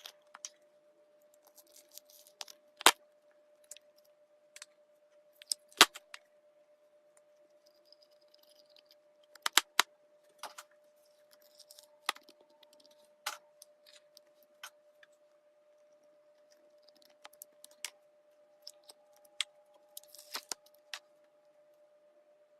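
Slime being handled and pressed, giving irregular sharp clicks and pops, the loudest about 3, 6 and 10 seconds in, over a faint steady hum.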